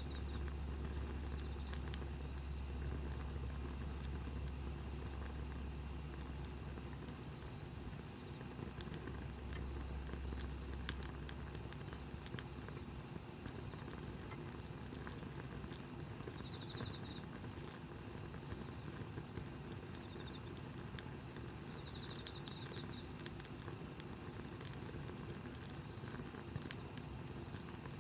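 Wood campfire crackling with scattered sharp pops, while insects trill in short high-pitched bursts that come and go. A low hum fades out about twelve seconds in.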